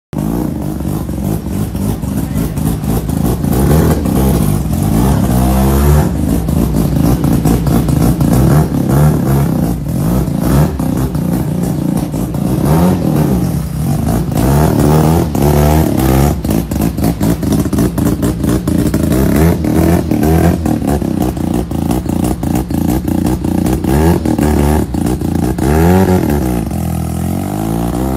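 Classic Volkswagen Beetle engine, run with the engine lid propped open, revving as the car pulls away and drives off. Its pitch rises and falls with several revs, then climbs steeply near the end as it accelerates.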